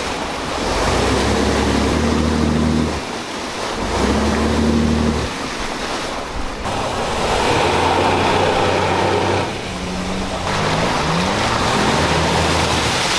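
A stuck pickup's engine revving in repeated bursts, a few seconds apart, with a few rising revs near the end. Its wheels are spinning and churning through icy water and mud as it is winched out of a creek.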